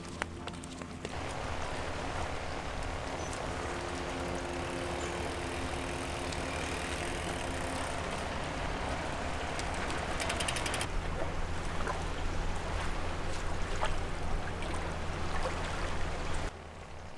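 Road bike rolling, with steady wind and tyre noise; about eight seconds in, the rear hub's freewheel clicks rapidly for a few seconds while the rider coasts. The sound starts and stops abruptly.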